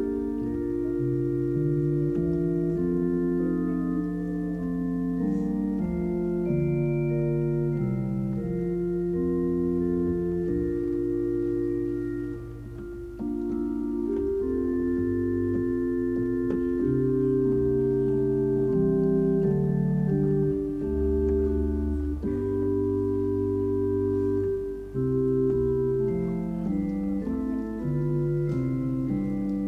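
Organ playing slow, sustained chords that change every second or two, with a deep bass note held for about a second a little past the middle.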